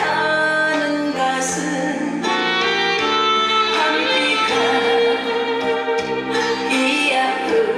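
Song performance with instrumental backing and a singing voice, played through a stage sound system.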